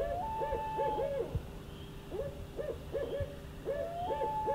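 Owl hooting: runs of short hoots that come in groups about every two seconds, with a longer higher note at the start of some groups.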